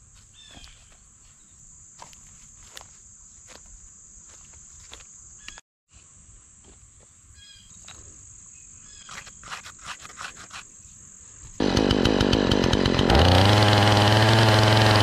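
Insects hum steadily, with a few bird chirps and small clicks. About twelve seconds in, a Troy-Bilt 20-inch gas chainsaw starts loud, then revs up to full throttle as it cuts into a fallen cherry log.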